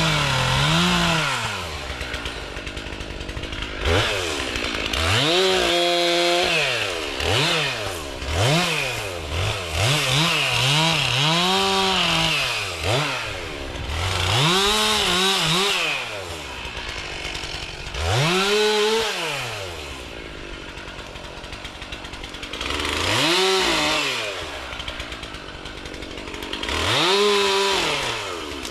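Chainsaw revved up again and again in bursts of one to several seconds, its pitch climbing and falling with each burst and dropping back to idle between them, as it cuts brush.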